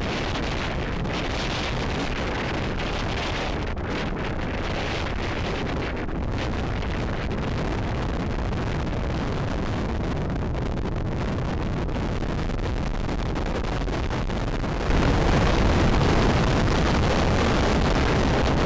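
Wind buffeting the camera microphone: a steady rush of noise that jumps louder about fifteen seconds in.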